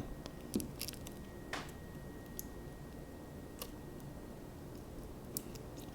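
Faint, scattered small clicks and ticks of a plastic spudger working under a glued-in iPhone 4 battery, prying it loose from the phone's case, with about half a dozen clicks spread out and long quiet gaps between them.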